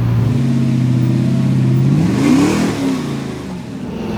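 Off-road 4x4 engine running steadily, then revving up sharply about two seconds in and dropping back.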